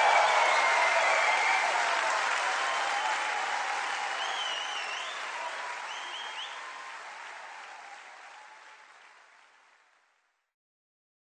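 A theatre audience applauding at the end of the musical's finale. The applause fades out steadily and is gone about ten seconds in.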